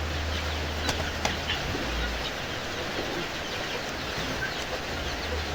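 A flock of village chickens clucking and chirping over a steady background hiss, with a couple of sharp taps about a second in.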